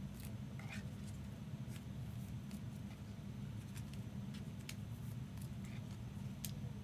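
Trading cards being slid into plastic sleeves and hard cases: faint scattered clicks and a couple of soft plastic rustles over a steady low hum.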